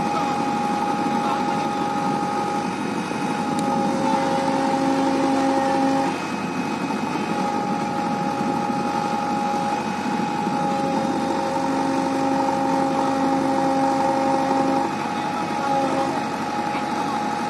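JCB 3DX backhoe loader's diesel engine running with its hydraulics under load, holding the machine up on its buckets, with a steady whine that changes note every few seconds.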